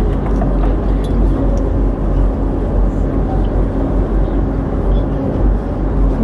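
Penang Hill funicular car running downhill, a loud steady low rumble of its wheels on the rails with a faint hum.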